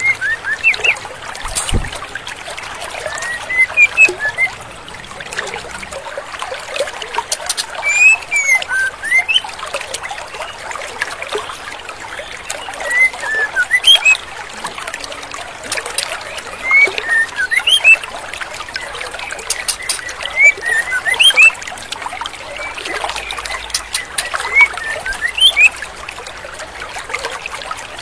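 Female white-rumped shama calling: clusters of short whistled chirps that rise and fall, every few seconds, over the steady trickle of a rocky stream.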